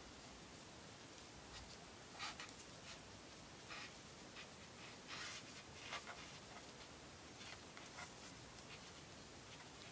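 Faint rustling and rubbing of cords being handled and drawn through a knot by fingers, in a handful of short scratchy bursts over a steady hiss.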